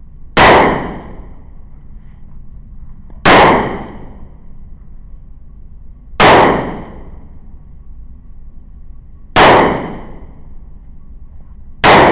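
Five gunshots fired at a slow, even pace about three seconds apart, each a sharp crack with an echoing tail off the walls of an indoor shooting range.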